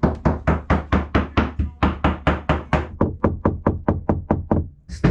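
Rapid, even tapping on a sailboat's deck, about four or five knocks a second, heard from inside the cabin below: a surveyor sound-testing the deck for delamination after collision damage.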